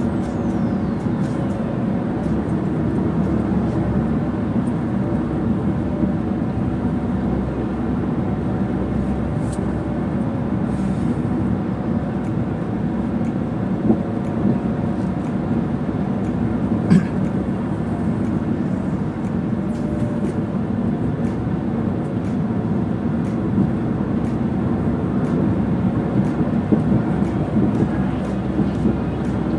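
Steady road and engine noise inside a moving car's cabin, with a couple of brief clicks partway through.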